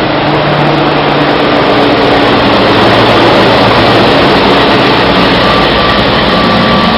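Class 60 diesel locomotive passing close by at low speed, its engine a steady low hum under a loud, even rush of train noise.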